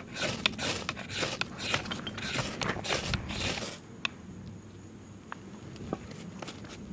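Knife blade scraped hard down a ferrocerium fire-starter rod, striking sparks onto tinder. The scrapes come in a quick series, about three a second, and stop a little under four seconds in, after which only a few faint clicks follow.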